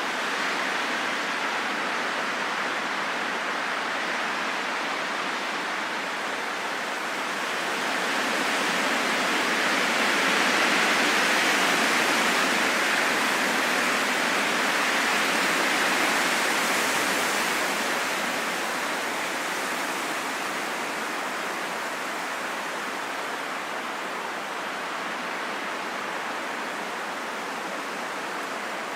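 Strong wind blowing in a steady rush that swells louder in the middle and then eases off.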